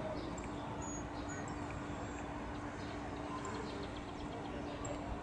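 Distant ATR 72-600's Pratt & Whitney PW127M turboprops and propellers giving a steady drone with a constant hum as the airliner climbs away after takeoff. Small birds chirp briefly now and then over it.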